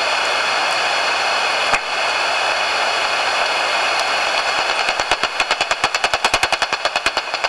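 Daubenton's bat echolocation calls made audible by a bat detector: a steady hiss, then from about halfway a fast train of dry clicks, around ten a second, as the bat hunts low over the water.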